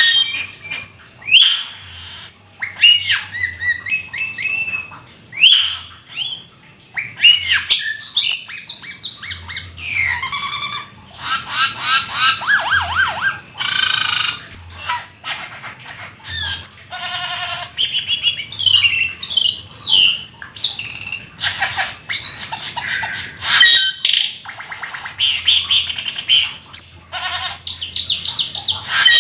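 Jalak keling singing hard in a long, varied song. It runs through clear whistles, quick rising and falling slurs, rapid trills and harsh squawky notes, with only short pauses between phrases.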